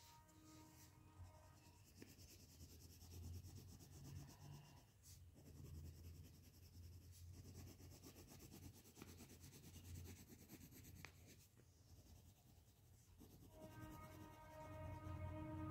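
Faint scratching of a coloured pencil shading on paper in quick hatching strokes. Near the end a faint steady tone with several pitches comes in.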